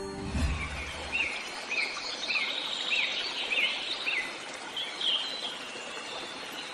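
A small bird chirping over a steady background hiss, short calls repeated about twice a second for a few seconds, then a few more after a pause.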